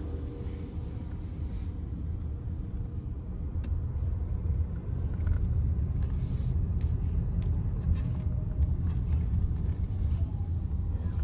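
Steady low rumble heard inside a car's cabin as it rides through an automatic tunnel car wash, growing a little louder partway through, with a few light clicks and two short soft hisses.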